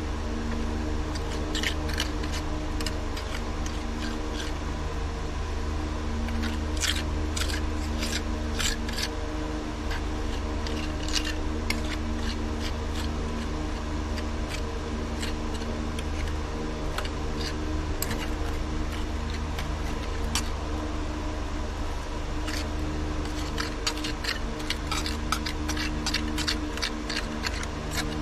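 Narrow steel tuckpointing tool scraping and clicking against mortar and concrete block as mortar is packed off a trowel into the block joints: short, irregular scrapes and clicks, bunched about a quarter of the way in and again near the end. A steady low mechanical hum runs underneath.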